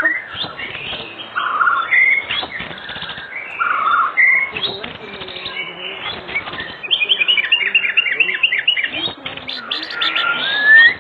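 White-rumped shama (murai batu) singing a varied song of whistles and chirps, with a fast run of repeated notes about two-thirds through and a long rising whistle near the end.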